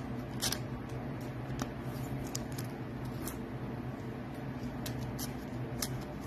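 Trading cards being handled and laid down on a tabletop: a scattering of faint, short clicks and rustles over a steady low hum.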